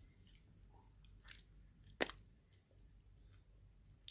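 Near silence: room tone with a few faint, short clicks, the loudest about two seconds in.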